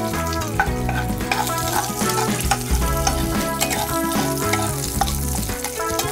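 Ghee and oil sizzling in a nonstick kadai as a flat spatula stirs a tempering of urad dal, cashews, cumin and green chillies, with frequent light clicks of the spatula on the pan. A soft background tune plays under it.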